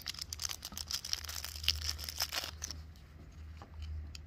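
Thin clear plastic bag crinkling and crackling as a small camera battery is pulled out of it, with dense crackles for the first few seconds and then only a few faint ticks. A steady low rumble runs underneath.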